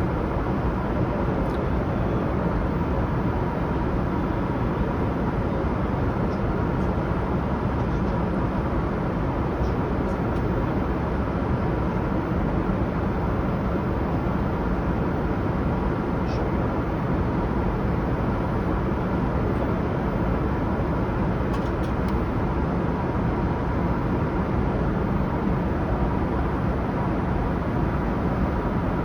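Steady cabin noise of a Boeing 787-9 in flight: an even rush of airflow and engine noise heard inside the cabin, with a faint steady tone under it.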